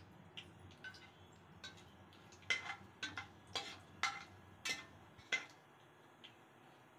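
Sharp, irregular clicks and taps, most of them between about two and a half and five and a half seconds in, as whole spices (bay leaf, cinnamon, cloves, cardamom) are stirred in hot oil in an aluminium pressure cooker with a metal slotted spatula.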